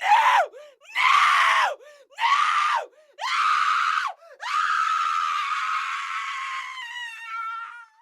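A person screaming: four short high-pitched screams about a second apart, then one long scream that breaks into a wavering tremble near the end.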